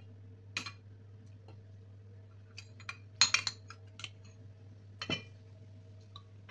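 A steel spoon clinks and scrapes against ceramic plates and a bowl as curry is served: a handful of sharp clinks, the loudest cluster about three seconds in, another near the end. A steady low hum runs underneath.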